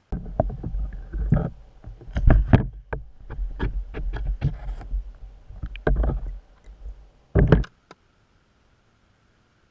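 A string of irregular knocks and clunks over a low rumble, with the loudest strikes about two seconds in. A last heavy clunk comes about seven and a half seconds in, then the sound cuts off.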